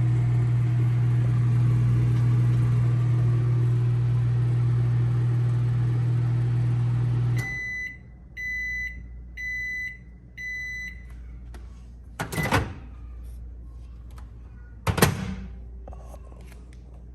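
Danby microwave oven running empty with a steady electrical hum. It shuts off abruptly partway through and gives a few short, high beeps about a second apart to signal the end of the cycle, followed by two loud clunks a couple of seconds apart.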